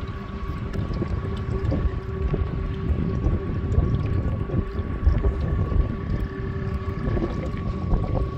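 Electric trolling motor driving a canoe, running with a steady whine, under gusty wind rumbling on the microphone.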